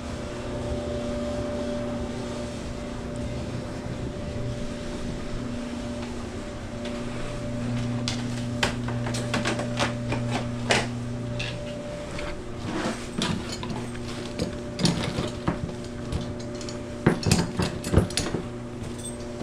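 Hand tools clicking and knocking against dryer parts, sparse at first and coming in quick clusters near the end, over a steady hum.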